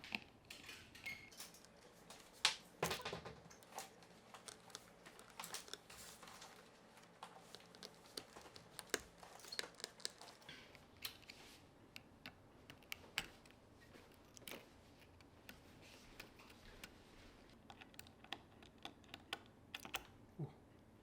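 Irregular small clicks and taps of hand tools and small parts handled during an iPhone repair, light and quiet, with a few sharper knocks.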